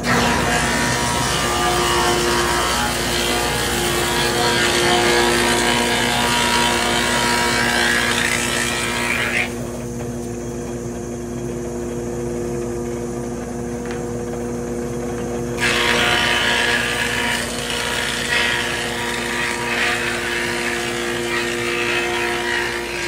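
Whitney thickness planer running with a steady motor hum, its cutterhead planing boards with a loud rushing noise. The cutting stops about nine seconds in, leaving the machine running unloaded for about six seconds, then starts again on the next board.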